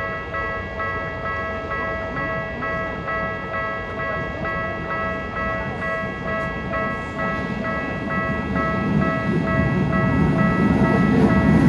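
Japanese level-crossing warning bell ringing in an even, clear-toned clang about twice a second. Over the last few seconds the rumble of an approaching Keikyu train swells beneath it.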